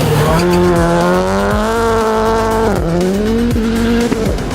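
Rallycross car engine revving hard under acceleration, its pitch climbing steadily, dropping sharply at a gear change about halfway through and climbing again, with another short dip near the end.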